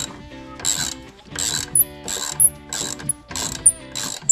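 Ratchet wrench with a 7 mm hex bit clicking through about six quick back-strokes, loosening the bolts to remove a motorcycle floorboard.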